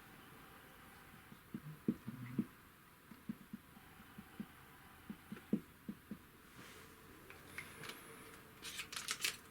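Hand drawing on a board: scattered soft, low taps and knocks, then a quick run of short scratchy strokes about seven to nine seconds in.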